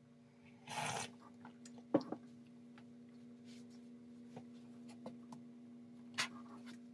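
Faint handling sounds at a desk: a brief rustle about a second in, a sharp tap about two seconds in (the loudest moment), and another tap near the end as an arm in a sleeve reaches across, over a faint steady hum.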